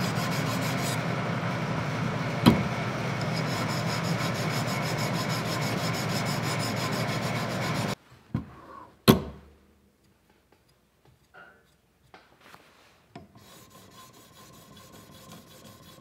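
Steady rasping scrape of a sharpening stone worked back and forth along a stainless steel knife edge on a guided sharpening system. It stops abruptly about eight seconds in, and a single sharp click follows about a second later.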